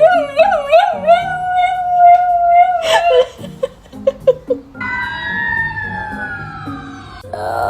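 A dog howling in response to police sirens. The howl wavers in pitch and is then held as one long note for about three seconds. A sharp knock and a few short yips follow, and from about five seconds in come slow sliding, falling tones.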